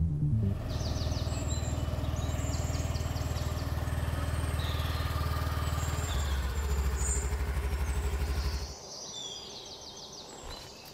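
Small motor scooter engine running steadily as the scooter rolls in and stops, switched off about nine seconds in. Birds chirp in short repeated trills throughout.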